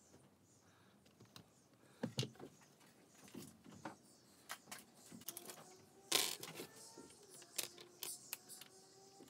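Scattered light clicks and knocks of plastic glazing packers and the glass unit being handled at a uPVC window frame, with a louder clatter about six seconds in.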